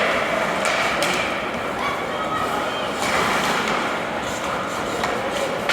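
Ice hockey arena during play: a steady hum of crowd noise with a few sharp knocks from sticks, puck and boards, echoing in the large rink.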